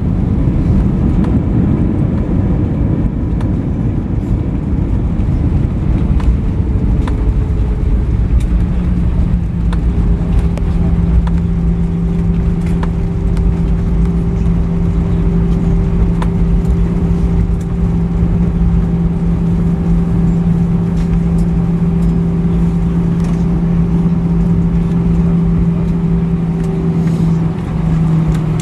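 Cabin noise of an Airbus A319 on its landing roll: a loud rumble of engines and wheels on the runway as the jet slows. About eight seconds in a steady low hum sets in beneath it.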